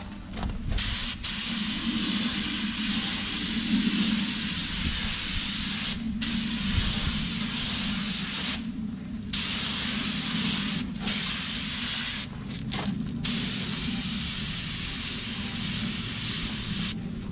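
Paint spray gun hissing in about four long passes of a few seconds each, with short breaks between trigger pulls, laying base coat onto a bumper repair. A steady low hum runs underneath.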